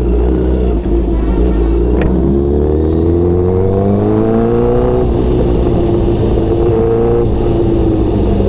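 Sport motorcycle engine pulling away at low speed: its note rises steadily as it accelerates, drops once about five seconds in, then climbs again briefly before settling lower. A single sharp click about two seconds in.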